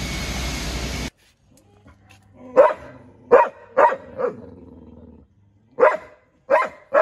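Large pit bull–type dog barking in two bursts, four barks and then three after a short pause, with its hackles raised. The barks follow a second of steady background noise that cuts off abruptly.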